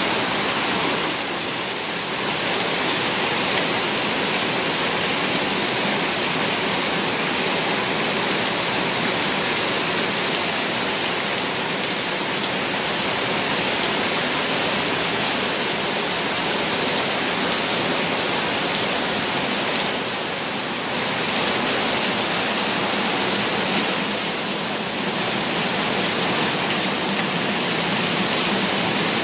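Heavy downpour with rainwater gushing and splashing as runoff, a steady rushing noise that dips briefly a few times.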